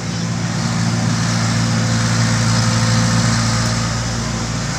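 Komatsu excavator's diesel engine running steadily, swelling a little in the middle and easing off toward the end.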